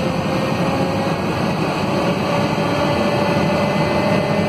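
Scania DC9 five-cylinder diesel engine of a Scania K230UB city bus running steadily, heard from inside the passenger cabin, with a thin whine that rises slightly in pitch about halfway through and then holds.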